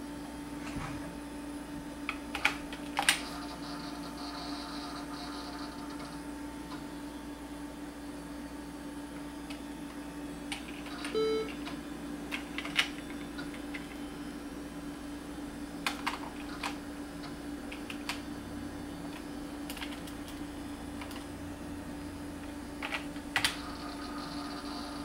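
Scattered keystrokes on a computer keyboard: isolated clicks and a few short clusters of key presses, over a steady hum.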